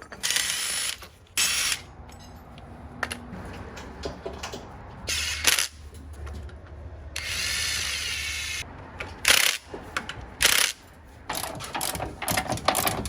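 Ratchet wrench clicking in short bursts, several runs of a few seconds apart, as bolts are run in on the engine's post mount bracket.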